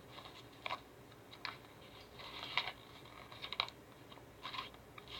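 Irregular light clicks and paper rustles of a book being handled and its pages turned.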